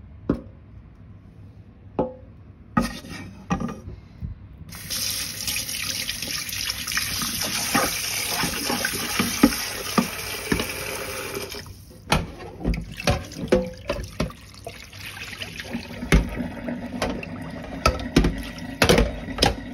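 A few knocks of a metal saucepan in a steel sink. Then tap water runs into the pan for about seven seconds and stops, followed by a run of clattering knocks as the pan is handled and tipped in the sink.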